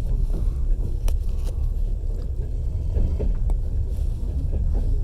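Passenger train carriage in motion: a steady low rumble of the running gear with occasional sharp knocks of the wheels over the rails.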